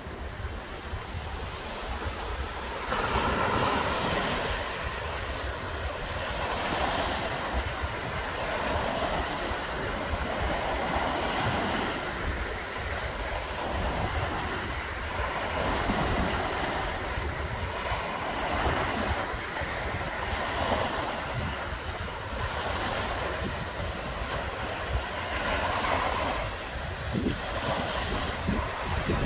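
Small waves from a large freshwater lake washing onto a sandy beach, the wash swelling and fading every few seconds. Wind rumbles on the microphone underneath.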